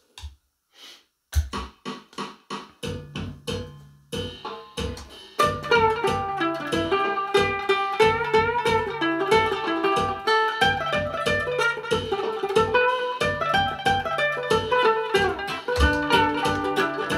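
Fender Telecaster-style ukulele playing an instrumental intro. After a brief silence, strummed chords start about a second in, and from about five seconds in the playing fills out into a steady, continuous rhythm with a low beat underneath.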